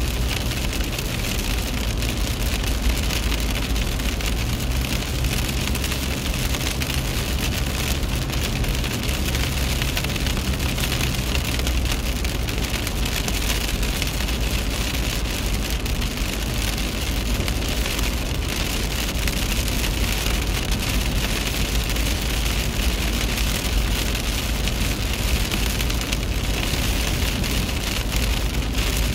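Steady rain pattering on a moving car, heard from inside the cabin, over a steady low rumble of the engine and tyres on a wet road.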